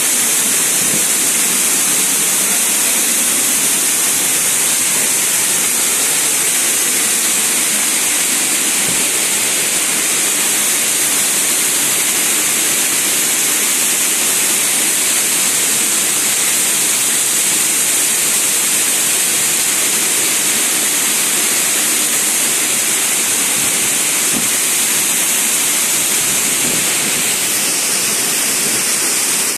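Waterfall pouring and splashing onto rocks: a loud, steady rush of water with a strong hiss.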